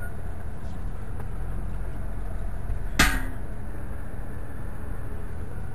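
Steady low rumble of a vehicle's engine and road noise inside the cabin as it drives slowly over rough ground. One sharp knock comes about three seconds in.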